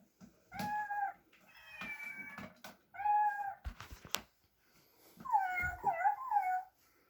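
A cat meowing, about four calls, the last one long and wavering, with a sharp click a little past the middle.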